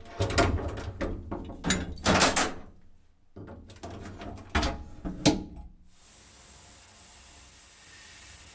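Knocks and clatters of handling inside a sandblasting cabinet as a cast part is set down on the perforated steel floor, then, about six seconds in, the steady hiss of the glass-bead blast gun starting up and running.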